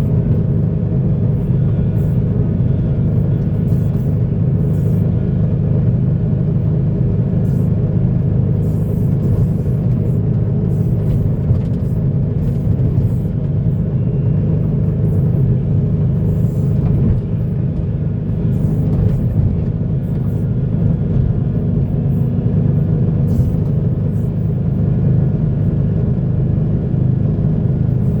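Heavy diesel earthmoving machinery running steadily: a constant low engine rumble that stays at a steady pitch throughout.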